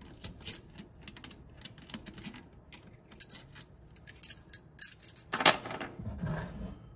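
Loosened steel bolts being spun out by hand from an aluminium balance shaft and oil pump housing and clinking together in the hand: a string of small metallic clicks, with one louder clack about five and a half seconds in.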